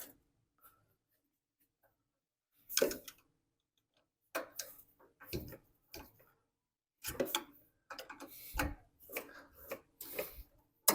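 Hand tools working on the carburetor mounting nuts of a Tecumseh snowblower engine: a scatter of short metallic clicks and scrapes, thickening from about halfway through.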